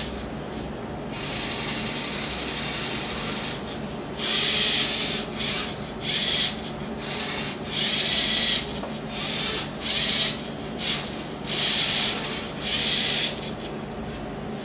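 Lego Mindstorms NXT 2.0 servo motors and gear trains of a pen plotter whirring in a string of short, stop-start runs as they move the pen carriage while drawing.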